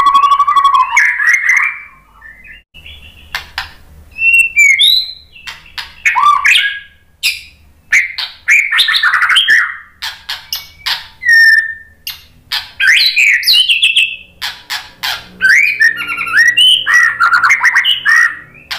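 White-rumped shama singing a varied run of loud whistled phrases, sliding notes, chirps and rapid clicking rattles, with short pauses between phrases. It opens with a held buzzy note that breaks off about a second in.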